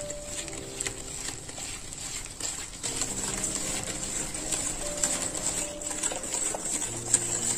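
Wire whisk beating ghee and sugar to a fluffy cream in a glass bowl: quick, uneven clicking and tapping of the wires against the glass, with the soft slap of the thick mixture.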